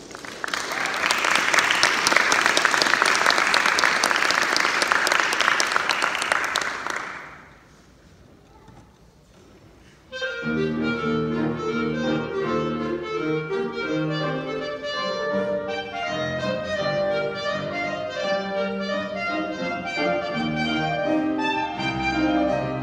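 Audience applauding for about seven seconds, then a short lull; about ten seconds in, a clarinet and piano start playing.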